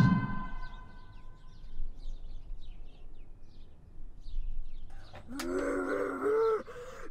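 Faint short bird chirps, then about five seconds in a drawn-out pitched call whose pitch rises, wavers and falls away over more than a second.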